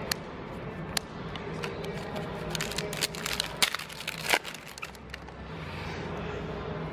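Magic: The Gathering cards being handled and laid down on a tabletop, with a cluster of crisp clicks and taps in the middle and light rustling.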